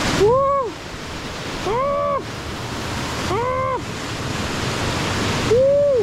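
Steady rushing of a waterfall and surf. Four short pitched calls, each rising and then falling in pitch, break in at even intervals over it.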